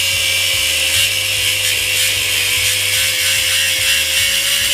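High-speed power tool cutting into a cast aluminum fire hose coupling: a steady high motor whine held at constant speed under a gritty cutting noise.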